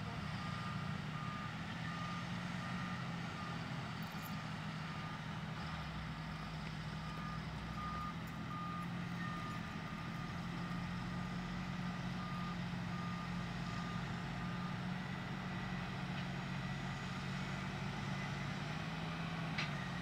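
Diesel engine of a Caterpillar 140G motor grader running steadily under load, while a backup alarm beeps in repeated runs with short pauses, as the grader backs up.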